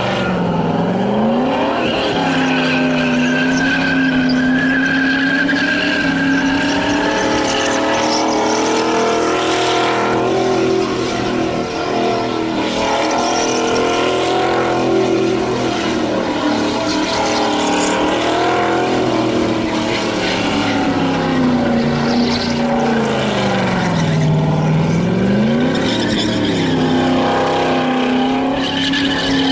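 Holden Commodore V8 held at high revs in a burnout, its rear tyres spinning and squealing on the pad. The engine note dips sharply and climbs back twice, about a second in and again near the end.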